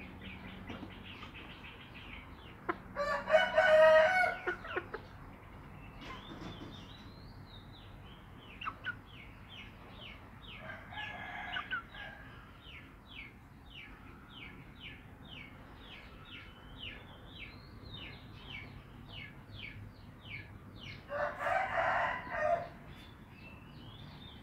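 Rooster crowing twice, each crow loud and about two seconds long, one a few seconds in and one near the end, with a fainter crow in between. Through much of it runs a quick series of short high chirps, two or three a second.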